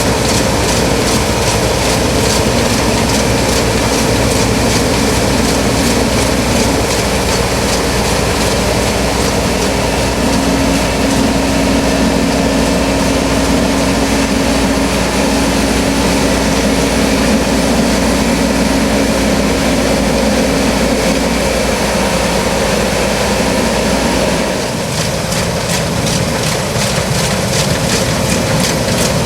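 New Holland CX8090 combine harvester on tracks running steadily while harvesting rice, a loud even machinery drone with a held hum. Near the end the deepest part of the drone drops away and the machine's note changes.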